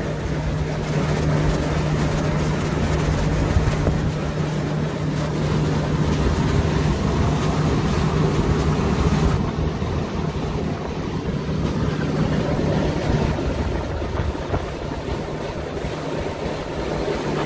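Johnson 70 outboard motor running the jon boat at speed, a steady engine hum under the rush of wind and water. The hum line drops away about thirteen seconds in.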